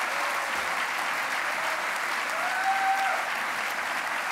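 Audience applauding steadily, with a brief held whoop rising out of the clapping about two and a half seconds in.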